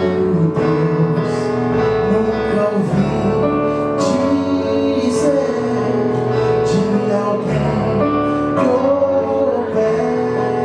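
Music of a gospel song starting abruptly: the instrumental introduction, with long held notes over a moving bass line.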